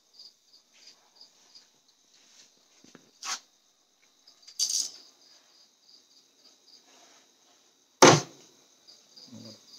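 Insects chirping in a steady, evenly pulsing high trill. A few sharp knocks stand out, the loudest about eight seconds in.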